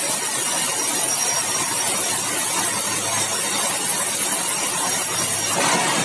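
Sawmill band saw running and cutting keruing timber, a steady high-pitched hiss of the blade in the wood, briefly louder near the end.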